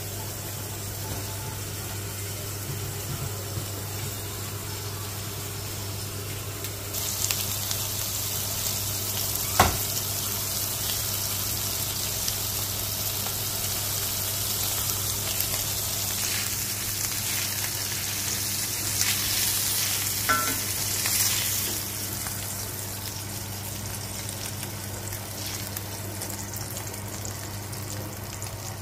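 Lamb kofta sizzling in hot oil in a frying pan. The sizzle grows louder about seven seconds in and eases off after about twenty-two seconds. There is a sharp knock near ten seconds and a steady low hum underneath.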